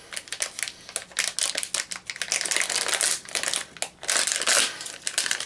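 Foil blind-bag pouch crinkling and crackling in the hands as it is worked open, in quick irregular crackles with louder bursts partway through.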